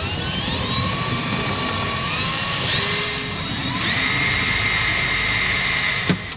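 Power drill motor whining as it drills a pilot hole: it speeds up at the start, steps higher in pitch, eases off briefly, runs up again to a steady high whine, then stops suddenly near the end.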